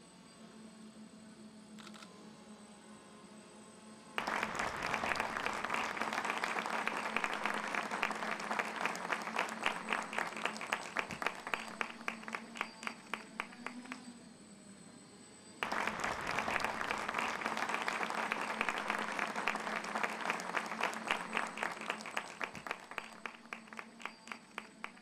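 Audience applauding in two rounds: the first starts suddenly about four seconds in and thins to scattered claps, and after a short pause a second round starts and again thins to a few last claps near the end.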